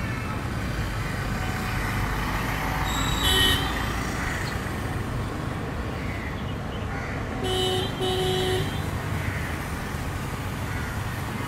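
Steady low rumble of traffic with a vehicle horn honking twice in quick succession about two-thirds of the way through; a shorter, higher toot sounds about three seconds in.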